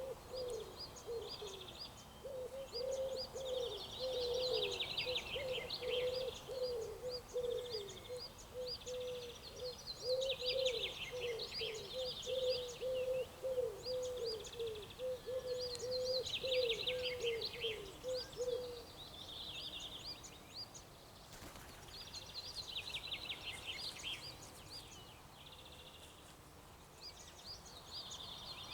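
Outdoor birdsong: a bird repeats a short, high trilled phrase every few seconds, while a low call repeated several times a second carries on underneath for about two-thirds of the time and then stops.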